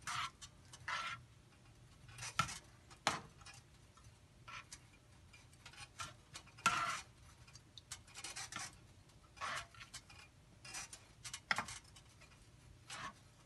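Metal slotted spoon scraping and tapping against a stainless steel pan as soft boiled rice is stirred and pressed in it. The scrapes come irregularly, a dozen or so short strokes with gaps between them.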